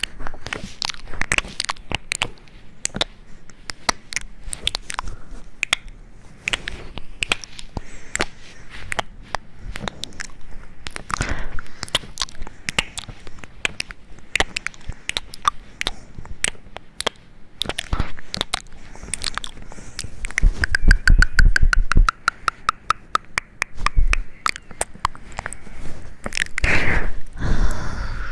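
Close-up crunchy chewing and biting: many irregular crisp crunches and clicks. About two-thirds through, a brief rapid buzzing trill.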